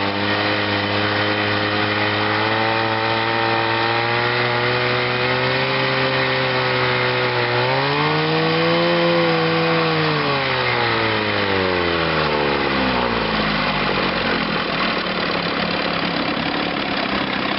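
Chrysler two-stroke outboard motor running in gear in a test barrel. The revs rise briefly about halfway through, then ease back down to a slower, steady speed, driving its starter-generator.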